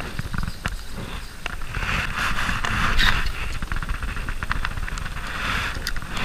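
Wind buffeting the camera microphone as a steady low rumble, with scattered knocks and rustles of handling.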